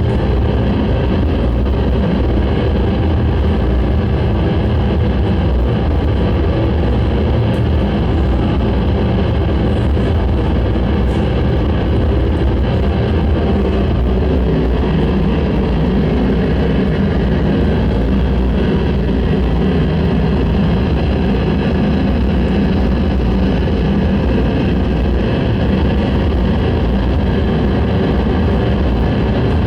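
Noise music: a loud, unbroken wall of dense low rumble with layered steady droning tones above it, holding level without a break.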